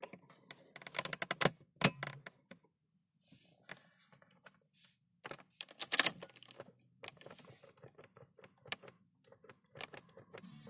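Irregular light clicks and rattles, bunched in quick clusters about a second in and again around six seconds in, from a hand working the trip-reset button on a BMW E36 instrument cluster.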